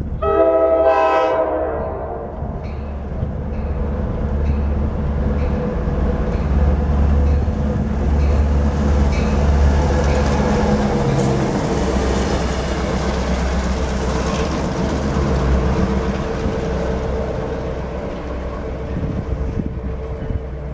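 Pair of EMD GP38H-3 diesel locomotives running light: one short blast of a K5LA air horn right at the start, then the diesel engines running, loudest as the locomotives pass close by about ten seconds in, with wheels clicking on the rails. The sound eases as they move away.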